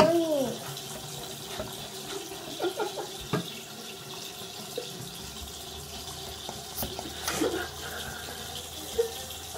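Bathroom tap running steadily into a sink while hands are washed, with a few short clicks from a pump soap dispenser being pressed.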